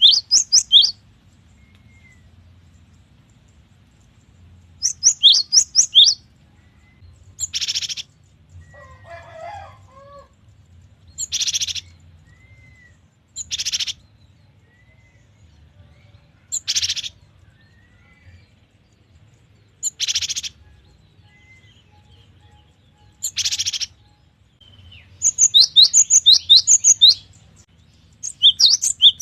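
Gelatik batu (cinereous tit) calling: quick bursts of high, sweeping chirps at the start, about five seconds in and again near the end, with single harsh, buzzy calls repeated every three seconds or so in between. A fainter, lower warbling call comes in around nine seconds in.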